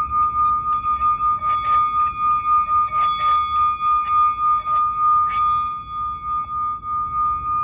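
Singing bowl ringing one steady high tone with overtones, its loudness pulsing about three times a second. Short light clicks or taps sound over it during the first five seconds.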